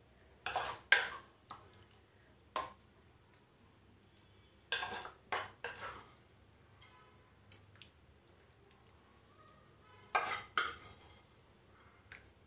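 Wooden spatula knocking and scraping against cookware and a glass bowl as thick vegetable curry is spooned out and spread, in a few short clusters of clatter several seconds apart.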